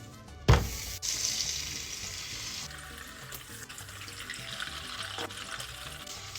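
Food frying in hot oil: a thump about half a second in, then a steady sizzle.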